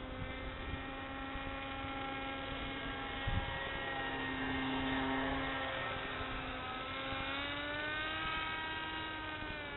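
Motor and propeller of a radio-controlled scale model Siebel 201 droning in flight, a steady pitched hum that is loudest as the plane passes about five seconds in, then rises and falls in pitch near the end. A brief low thump about three seconds in.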